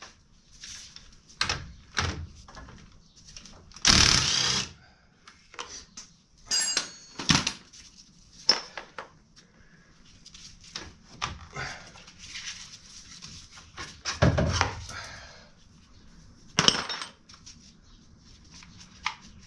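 Hand tools and metal parts of a UTV rear hub clinking and knocking at irregular intervals, with louder clatters about four seconds in and again near the end.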